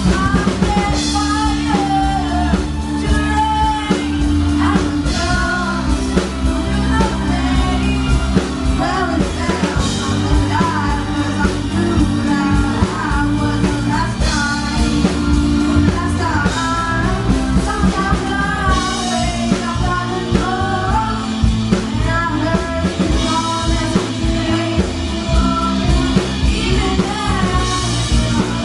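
A song with a singing voice over a full band of drum kit and guitar.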